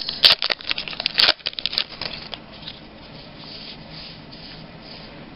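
Trading-card pack wrapper crinkling and tearing as it is opened, a rapid run of crackles over the first two seconds or so. It then fades to a faint rustle of cards being slid through the hand.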